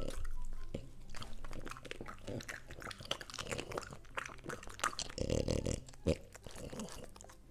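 French bulldog biting and chewing a slice of raw cucumber: a run of crisp, wet crunches, with a brief louder noise from the dog about five seconds in.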